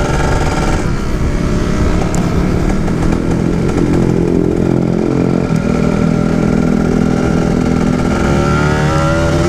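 Kawasaki Ninja 150 SE two-stroke single-cylinder engine running under way, holding a fairly steady pitch, then rising in pitch as it accelerates near the end.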